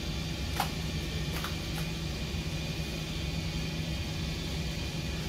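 Steady low machine hum, with three short crackles in the first two seconds as vinyl wrap film is handled and pressed onto a boat hull.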